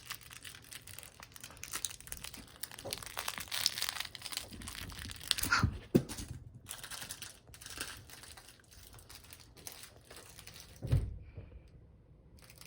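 A miniature dachshund playing with a crinkly plush rain-cloud dog toy: irregular crinkling and crackling as the toy is chewed and handled, with a thump about eleven seconds in, after which it goes quieter.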